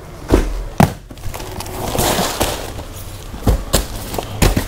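Plastic-wrapped bedsheet packs being handled and set down while a carton is unpacked: several sharp knocks and thuds, with a crinkling rustle of plastic packaging about two seconds in.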